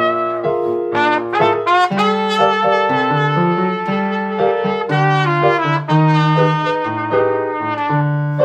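Trumpet playing a melody with quick runs of notes, over a backing accompaniment of low held bass notes.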